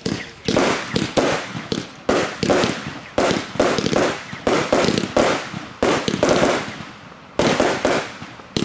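TROPIC TB71 'Galaxy' 49-shot firework battery firing shot after shot, sharp bangs coming two to three a second, each with a short fading tail. Firing pauses for over a second about two-thirds of the way through, then picks up again.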